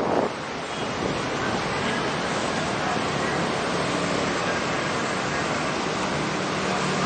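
Steady rushing roar of road traffic mixed with wind on the microphone, with a faint low engine hum coming in from about halfway through; no horn sounds.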